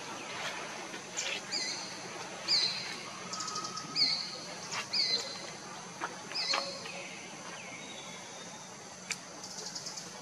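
A bird gives short, high calls again and again, about one a second, over steady outdoor background noise, with a few sharp clicks between them.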